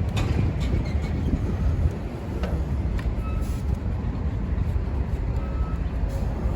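Steady low rumble of vehicle traffic, with a few sharp clicks.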